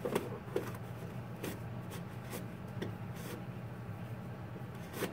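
Disposable exam gloves pulled from a wall-mounted glove box and put on: scattered light rustles and soft clicks, one a bit longer about three seconds in, over a steady low hum.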